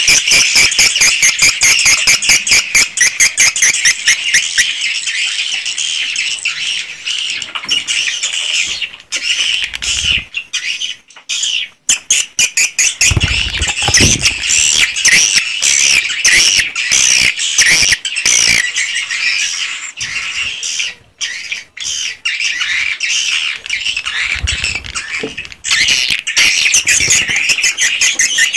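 Swiftlets chittering inside a swiftlet house: at first a fast, even run of clicking chirps, then a dense, continuous twitter of many birds, with a few low thumps along the way.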